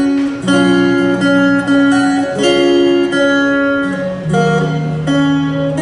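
A live band's instrumental song intro led by guitar: a string of picked notes ringing over a lower bass line.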